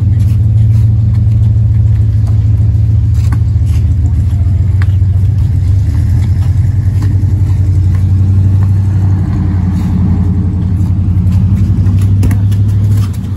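A loud, steady low motor hum that drops away near the end, with faint knocks of a basketball bouncing on concrete.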